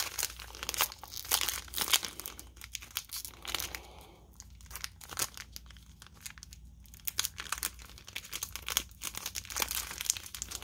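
Wrapper of a 2020 Panini NASCAR trading card pack crinkling and tearing as it is pulled open by hand, a pack that is hard to open. Irregular crackles, with a quieter spell about halfway through.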